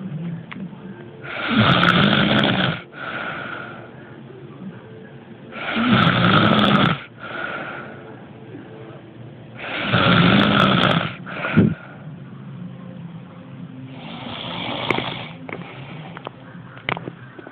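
A person snoring: four loud, rattling breaths in, about four seconds apart, each followed by a shorter, quieter breath out. The last snore is softer.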